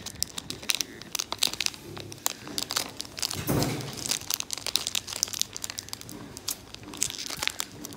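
Shiny plastic snack wrappers crinkling and crackling sharply as fingers handle them and work them open, with a brief dull rumble about halfway through.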